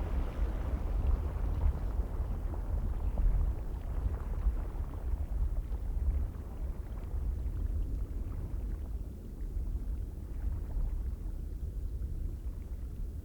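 Icelandic geyser field recording: a rushing noise that dies away over the first half, over a steady low rumble of wind on the microphone.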